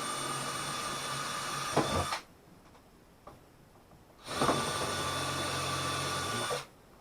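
Power drill running in two bursts of about two seconds each, a steady high whine with a short gap between.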